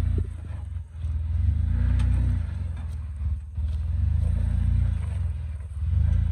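Jeep Wrangler's engine rumbling at crawling speed as it climbs over boulders, the throttle swelling and easing several times.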